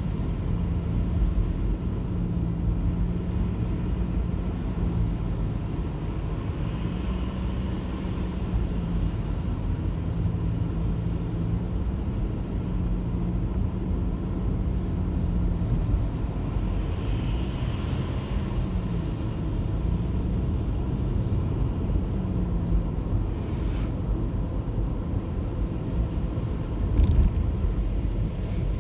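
Car driving: a steady low rumble of engine and tyres, with a low engine hum that wavers in pitch. A few short clicks come near the end, the loudest a knock shortly before it ends.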